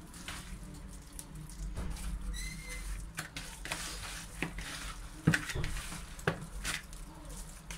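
Hands squishing and slapping through wet, spice-coated chicken pieces in a plastic bowl, working the chermoula into the crushed meat: irregular wet smacks, the loudest a little past halfway. A short high squeak about two and a half seconds in.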